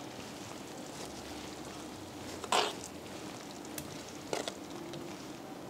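Thick tomato-onion curry gravy cooking on a low flame in a kadai, with a faint steady sizzle. About two and a half and four and a half seconds in come two brief soft sounds as pieces of corn cake are slid off a steel plate onto the gravy.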